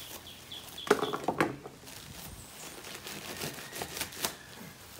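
Plastic bag of potting soil being handled and cut open with a knife: crinkling and tearing plastic, with a burst of sharp crackles about a second in and scattered softer crackles later.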